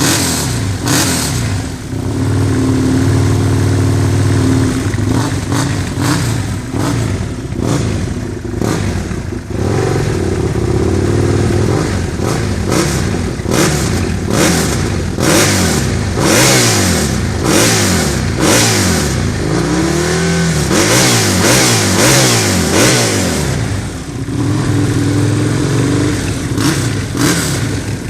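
Husqvarna Nuda 900 R's parallel-twin engine with an aftermarket exhaust, revving up and down repeatedly, its pitch climbing and dropping over and over.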